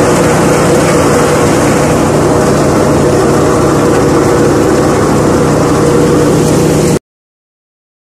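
Engine-driven farm machinery running steadily at constant speed: a loud, even hum with a dense rushing noise over it. It cuts off abruptly near the end.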